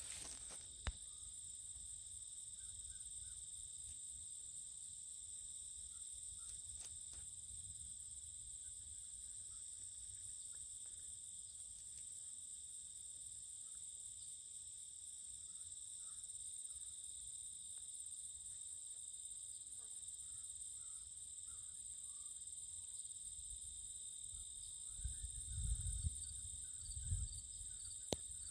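Steady, high-pitched trilling of insects, faint and unbroken, with a few low rumbles near the end.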